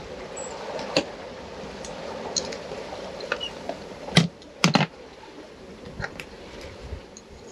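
Steady rush of water past a sailboat underway, with scattered sharp clicks and knocks; the loudest are two knocks about four and a half seconds in.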